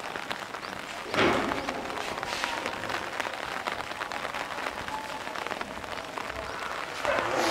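Heavy rain pattering steadily, with a short louder burst about a second in.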